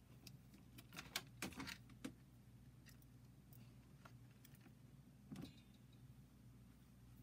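Faint clicks and taps of small objects being handled, a cluster about a second in and one more about five seconds in, over a low steady hum.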